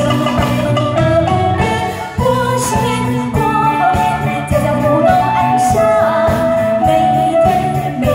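Female singer singing a melody into a microphone, amplified through a PA, over live band accompaniment with a steady beat.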